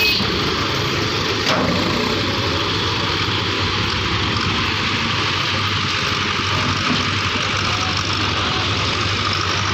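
John Deere 5310 tractor's diesel engine running steadily.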